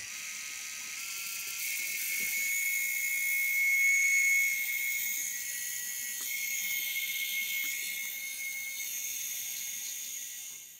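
LEGO Technic 43362 light 9V mini-motor running with a high-pitched screech, a fault it has recently developed. The screech is a steady cluster of whistling tones, loudest about four seconds in, and stops shortly before the end.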